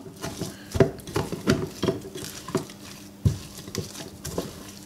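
A hand mixing and squeezing a sticky dough of ground cooked rice in an enamel pot: irregular soft squelches and pats, a few each second.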